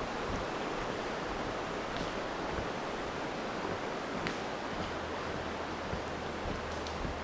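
Steady rushing of the East Branch Pemigewasset River, with a few faint clicks.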